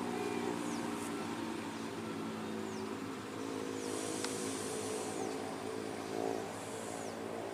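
Diesel locomotive running light at low speed, its engine a steady hum. A few faint high descending chirps sound over it.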